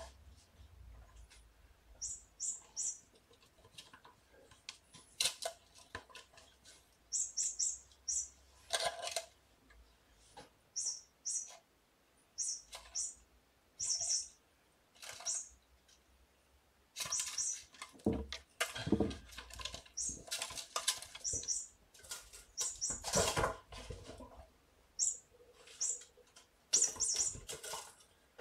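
Kittens at play: short, high-pitched tinkling sounds, often in quick twos and threes, mixed with rustling scuffles that grow louder and busier in the second half.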